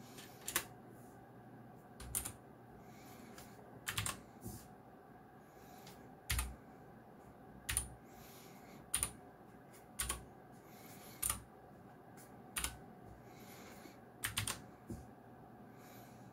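Mechanical keyboard with clicky blue switches, single keys pressed one at a time: sharp clicks about every second and a half, with a few presses in quick succession.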